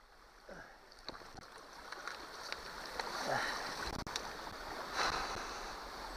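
Rustling and knocking of trash being picked out from among rocks and tree roots by a gloved hand, over running creek water. The noise builds from about a second in, with louder rustles twice.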